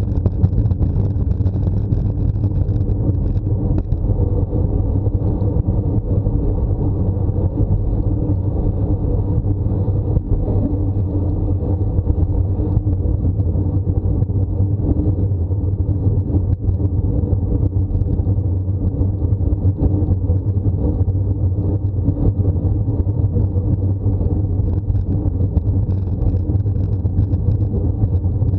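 Steady low rumble of wind buffeting the microphone of a bike-mounted camera, mixed with tyre noise on asphalt, as a road bike climbs at about 25 km/h.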